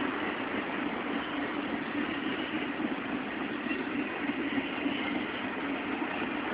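Norfolk Southern Triple Crown RoadRailer trailers rolling past on their rail bogies: the steady, even noise of steel wheels running on the rail.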